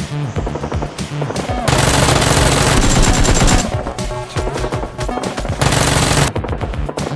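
Rapid automatic gunfire in bursts over background music. The heaviest burst starts about two seconds in and lasts about two seconds, and a shorter loud burst comes near the end.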